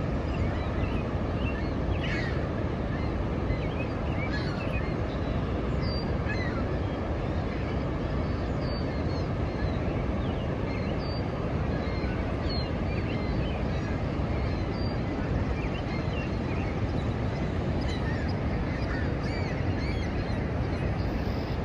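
Water of Niagara Falls pouring down in a steady, unbroken rush, with birds calling briefly now and then over it.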